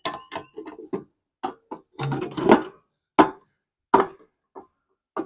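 Metal parts of a kerosene heater being handled and fitted together: a series of about ten clinks and knocks, some ringing briefly, with the loudest a couple of seconds in.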